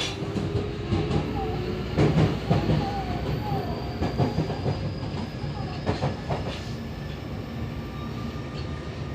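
Yokohama Municipal Subway 3000R train running, heard from inside the passenger car: a steady rumble with the wheels knocking over rail joints several times, and a faint high whine rising slowly in pitch.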